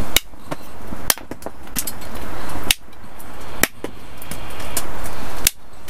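A heavy chopper knife tapped down through a stick of bone-dry hardwood on a wooden block. About five light taps at uneven spacing, each a sharp crack.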